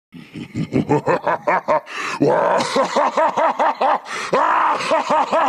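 Cartoon villain's evil laughter: a quick run of short chuckles, then, about two seconds in, a longer, higher 'ha-ha-ha' with rapid, evenly spaced syllables.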